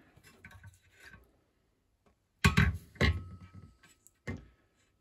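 Metal toaster parts handled on a workbench: light rustling, then three hard knocks, the second followed by a faint metallic ring.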